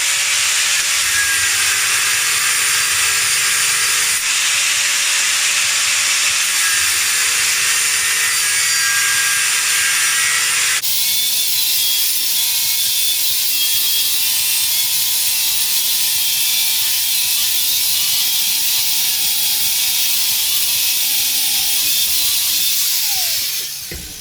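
A power tool cutting through the steel of an old pick axe head: a loud, continuous grinding hiss with a motor whine that wavers under load. About eleven seconds in the sound changes abruptly and carries on with less hiss, then fades near the end.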